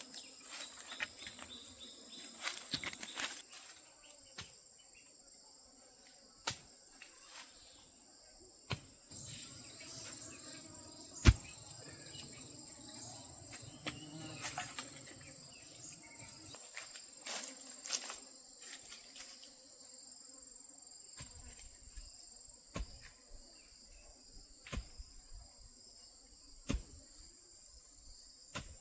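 Insects, crickets or cicadas, keep up a steady high-pitched drone, broken by scattered sharp knocks and taps from work close by, the loudest about eleven seconds in.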